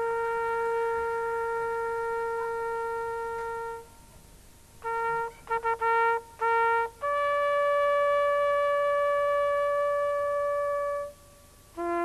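Solo trumpet playing a slow melody. A long held note gives way to a few short notes, then a higher note held about four seconds, and lower short notes begin near the end.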